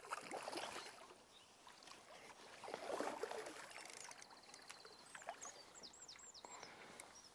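Faint water splashing and sloshing as a hooked fish is played close in and drawn toward the landing net, with a bird chirping a handful of short high notes about two thirds of the way through.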